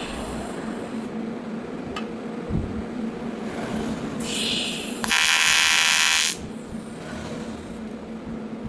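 AC TIG welding on aluminum: a steady electrical hum, then a short high hiss about four seconds in and a loud, harsh arc buzz for about a second.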